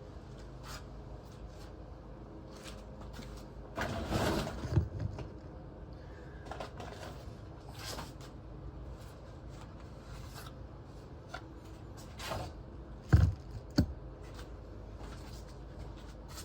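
Scattered handling noises, mostly scrapes, clicks and light knocks of metal and plastic parts, over a steady low hum. A longer scrape comes about four seconds in, and two sharp knocks follow in quick succession near the end.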